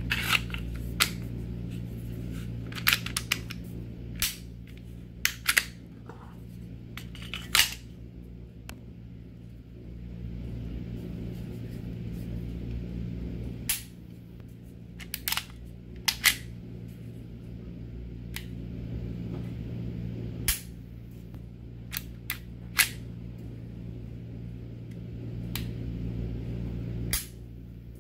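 Sharp metal clicks and clacks of a Smith & Wesson M&P Shield 9mm pistol's stainless slide and polymer frame being handled during reassembly, about fifteen of them at irregular intervals, over a steady low hum.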